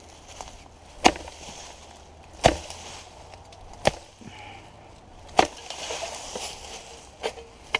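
Wildland fire hoe (J.R. Fire Tools BigFoot 40) chopping. Four sharp strikes come about every second and a half, followed by two lighter ones near the end.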